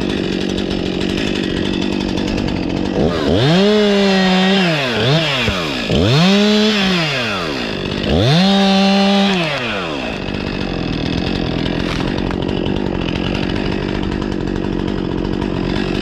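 Top-handle two-stroke chainsaw idling steadily, revved up to full throttle three times, each rev held about a second and a half before dropping back to idle.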